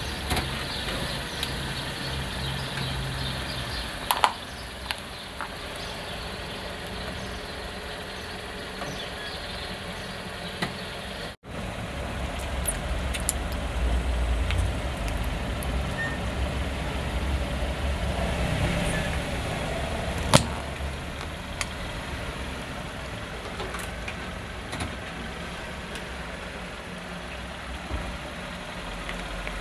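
Car engine idling close by, a steady low rumble with a few sharp clicks and cracks over it, the loudest about twenty seconds in. The sound drops out for an instant about eleven seconds in.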